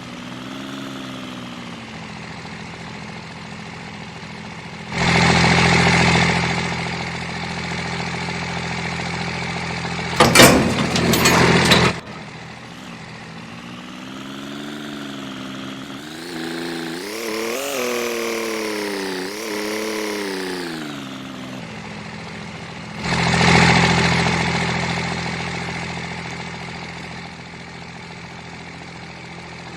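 A vehicle engine running, its pitch rising and falling. Loud rushing noise swells about five seconds in and again later on, and a sharp clatter comes around ten seconds in.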